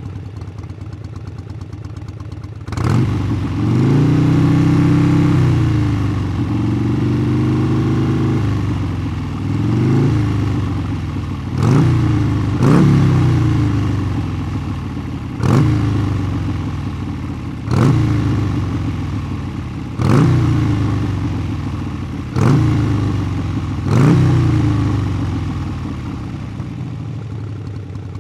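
Motorcycle engine idling, then revved and held for about five seconds before dropping back. It then takes a string of about eight quick throttle blips, roughly one every two seconds, each pitch jumping up and sliding back down to idle, and settles to idle near the end.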